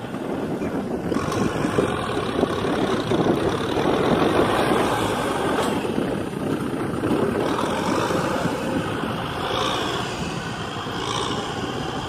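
Tractor engine running steadily, with a couple of brief higher rising-and-falling tones near the end.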